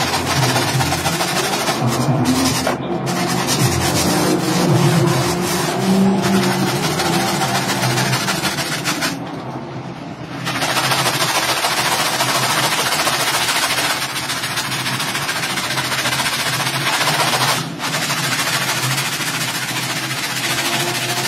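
Stiff hand brush scrubbing a wet, foamy rug: a continuous scratchy hiss of bristles on soaked pile. The scrubbing pauses briefly about halfway through and dips once more near the end.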